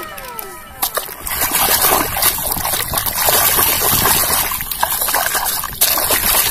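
Plastic toy train being swished and dunked by hand in shallow water: repeated splashing and sloshing. A few falling tones fade out at the very start.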